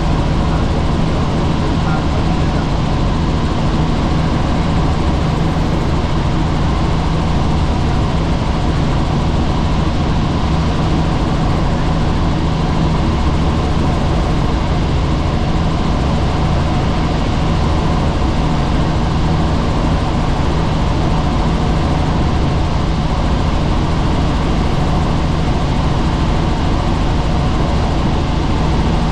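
Helicopter in flight: a loud, steady drone of rotor and turbine with a strong low hum, unchanging throughout.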